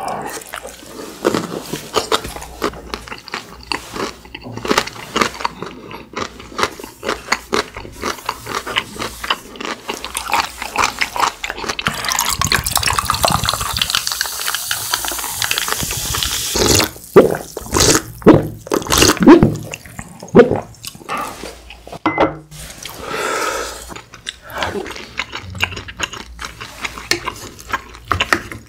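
Close-miked eating sounds: chewing and mouth clicks. About halfway through, soda is poured from a can into a glass mug of ice, a steady fizzing hiss for about four seconds, followed by several loud knocks and clicks.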